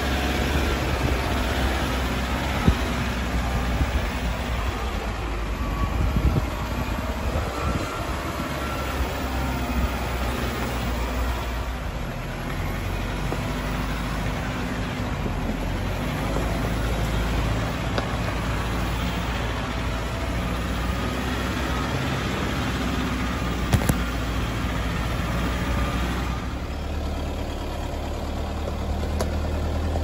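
Four-wheel-drive ute driving slowly up a rough dirt track: a steady low engine hum under the rumble of tyres and body, with a few sharp knocks and rattles.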